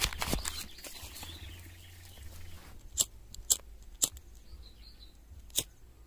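Dry brush rustling at the start, then four sharp, separate snaps about three, three and a half, four and five and a half seconds in: dry twigs and dead leaves cracking in dry undergrowth.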